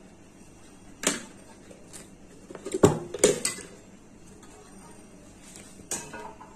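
A non-stick cake pan and a plate knocking and clattering together as the pan is turned upside down onto the plate to turn out a freshly baked cake. One knock about a second in, a burst of louder clatters around the middle, and one more knock near the end.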